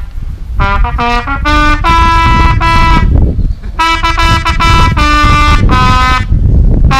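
A wind instrument playing a melody of single held notes, one after another, in two phrases with a short pause between them.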